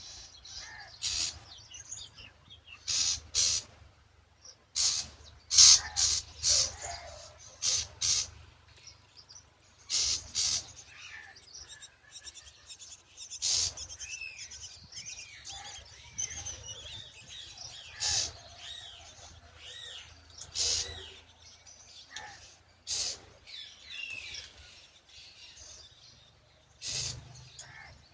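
Myna birds calling at the nest: short, loud, sharp calls repeating every second or two, with quieter rising-and-falling chirps in between.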